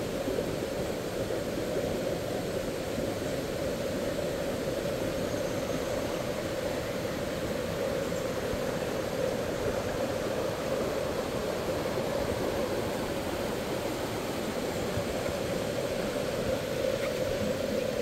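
Small mountain river rushing down its bed, a steady, unbroken rush of water.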